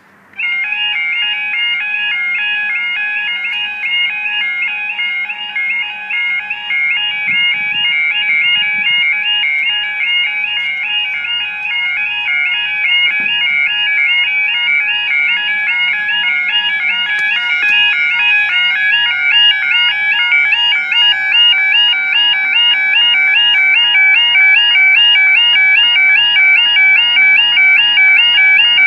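Level crossing audible warning alarm sounding a rapid warbling yodel tone as the crossing activates and the barriers lower. It switches on suddenly and grows a little louder toward the end.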